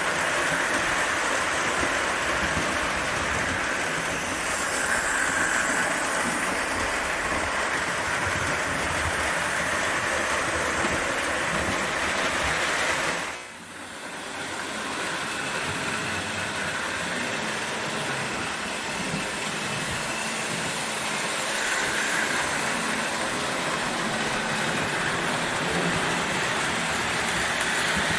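O gauge toy train running on the layout's track, a steady rushing rattle of motor and wheels, briefly dropping away about halfway through before picking up again.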